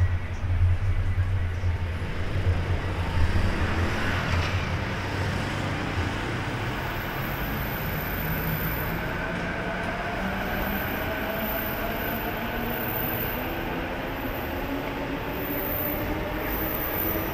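Train running on the elevated railway beside a busy street, with cars passing. A heavy low rumble lasts through the first few seconds, then settles to a steady hum with a faint whine slowly rising in pitch.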